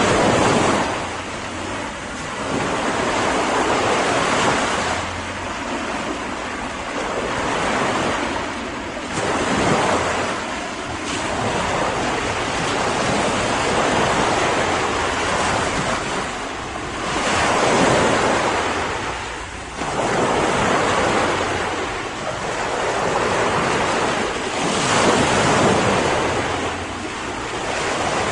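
Sea waves breaking and washing ashore, the surf swelling and ebbing every few seconds, with wind noise on the microphone.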